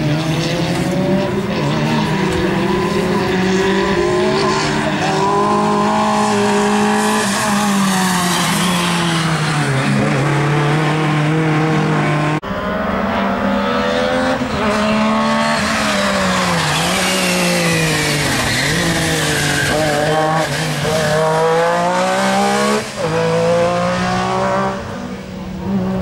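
Rally car engines at full throttle, first a Mitsubishi Lancer Evolution, the pitch climbing and dropping with throttle and gear changes. About halfway through the sound breaks off suddenly and another car's engine carries on in the same way.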